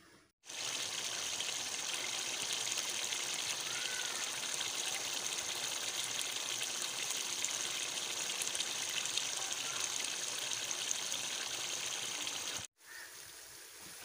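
Chickpeas frying in oily masala in a pan, a steady sizzling hiss as they brown. It starts about half a second in and cuts off sharply near the end.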